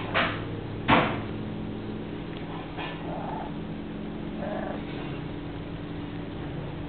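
Two sharp knocks near the start, then faint cat mews about three and four and a half seconds in, over a steady low hum.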